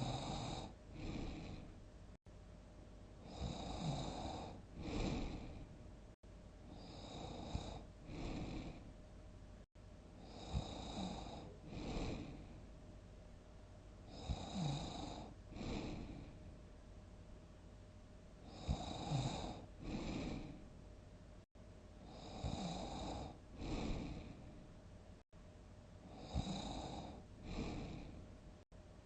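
A sleeping person snoring heavily in a steady rhythm: each breath gives a long rasping snore, then a shorter second snore about a second later. The pair repeats roughly every four seconds, about seven times.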